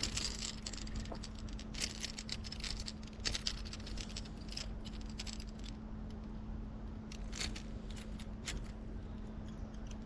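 Irregular small metallic clicks and rattles, typical of a topwater lure's hooks jangling as a tiny hooked fish is reeled in and handled. A steady low hum runs underneath.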